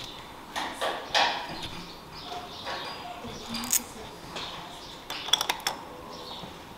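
Hands handling wiring and small plastic parts at a motorcycle turn-signal light: scattered light clicks and rustles, with a quick cluster of clicks about five seconds in.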